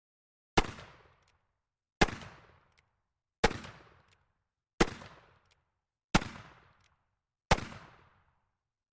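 Six revolver shots fired one after another, about a second and a half apart, each with a short echoing tail: a cap-and-ball revolver emptying its six-shot cylinder.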